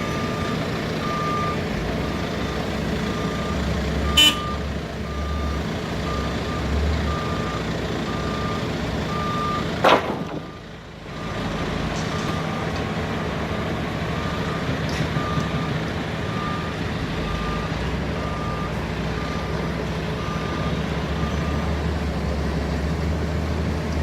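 Telehandler engine running steadily while its reversing alarm beeps about once a second. Two short sharp bangs come about four and ten seconds in; the second is the loudest sound, and the level drops briefly after it.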